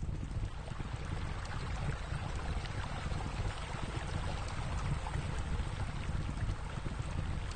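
Steady rushing and splashing of water, as from a pool's water features spilling into the pool.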